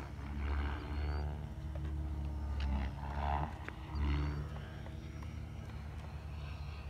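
Wind gusting across the phone's microphone, a deep buffeting rumble that swells and drops. Under it is a faint steady whine from the Durafly T-28 model warbird's electric motor and propeller as it flies its landing approach.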